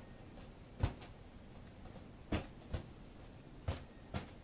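Five sharp knocks at uneven intervals, the first about a second in, over a faint room background.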